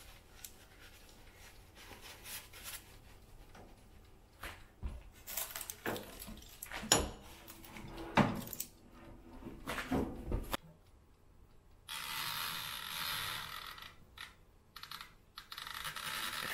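Kitchen handling sounds: a run of knocks and clatters as a baking tray and dishes are moved about, then a steady rushing noise for the last few seconds, broken once by a short gap.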